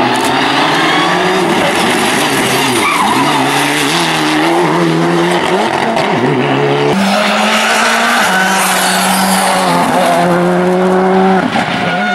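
Mitsubishi Lancer Evolution rally car's engine revving hard, its pitch climbing and dropping several times as the driver shifts and lifts through a tight chicane, with tyres squealing. The engine note changes abruptly about seven seconds in to another high, steady run.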